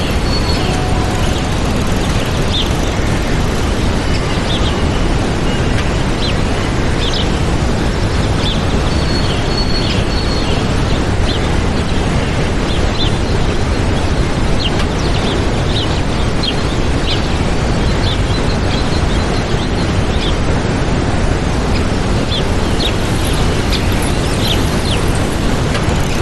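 Waterfall: a loud, steady rush of falling water, heaviest in the low rumble, with small birds chirping in short high notes scattered over it.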